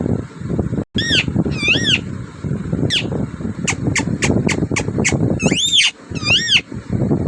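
A parrot calling. There are arched whistled calls about one and two seconds in, a quick run of short chirps at about five a second, then two more long arched whistles near the end, over a steady low background noise.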